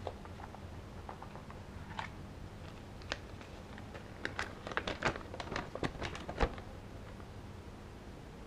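Folded paper user manual being handled and unfolded: a few light clicks, then a quick run of crisp paper crinkles and snaps from about four to six and a half seconds in.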